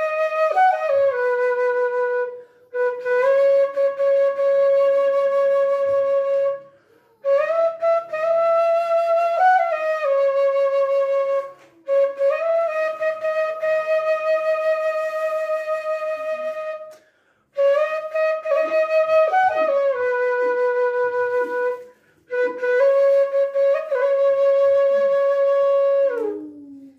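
Bamboo suling flute in F# played solo: long held notes decorated with quick grace-note flicks and slides, in phrases broken every few seconds by short pauses for breath. The final note slides downward near the end.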